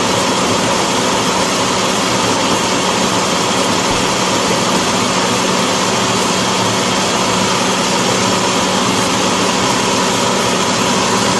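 Countertop blender running steadily while blending a thick yogurt smoothie: a steady low motor hum under loud, even whirring noise.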